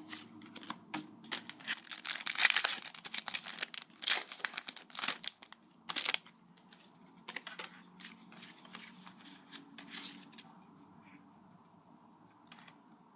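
A foil Pokémon card booster pack wrapper crinkling and being torn open, loudest about two to three seconds in, followed by lighter crinkles and rustles that die away after about ten seconds.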